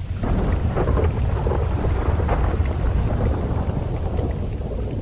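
A long rolling thunder rumble over rain, swelling in the first second and slowly fading.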